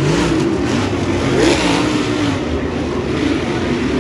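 Several dirt late model race cars' V8 engines running hard around a dirt oval, their pitches wavering and overlapping. One car passes close by, loudest about a second and a half in.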